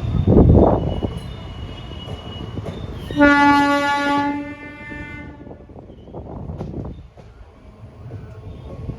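Train horn sounding one steady blast of about a second and a half, about three seconds in, over the rumble and clatter of trains running on the track. A loud low rumble swells and fades near the start.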